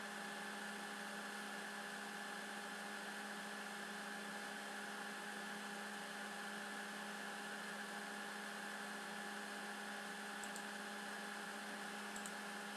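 Steady electrical hum with hiss in the recording, with a couple of faint ticks near the end.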